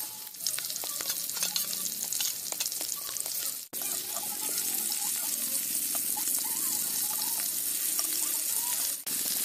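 Prawns sizzling as they fry in hot oil in an iron kadai, with light ticks and scrapes from a metal spatula turning them. The sizzle breaks off for an instant twice.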